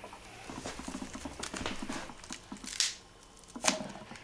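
HHO (oxyhydrogen) gas bubbling up through the water of a spark arrestor/bubbler, a fast steady pattering. Two short sharp clicks come in the second half.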